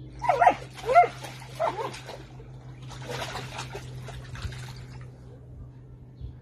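A dog gives three short high-pitched yips in the first two seconds, then splashes water about in a paddling pool for a second or two.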